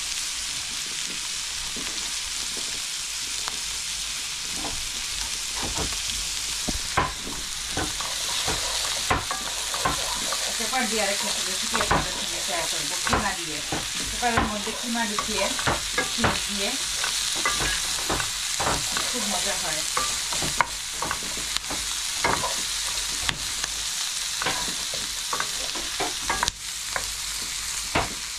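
Diced chicken and red onion sizzling in butter in a nonstick wok, with a wooden spatula stirring and scraping the pan in frequent short strokes, busiest through the middle.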